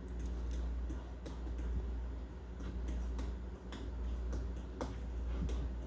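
Metal fork clinking against a bowl while stirring cheese sauce: scattered light ticks at an uneven pace, over a steady low hum.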